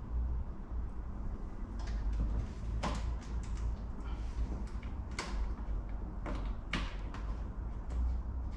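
Workshop handling noises: a series of short scrapes and knocks, like parts or panels being moved and fitted, over a steady low hum.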